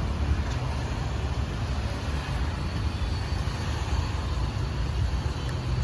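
Steady low rumble of passing road traffic, with no distinct single event standing out.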